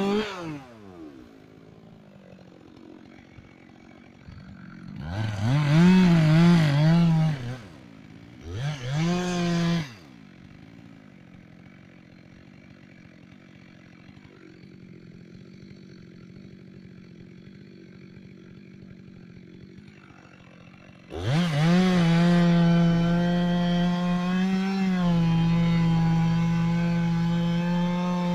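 Two-stroke chainsaw revved in short bursts, dropping back to a quiet idle between them, then opened up to full throttle and held at a steady high pitch for the last several seconds.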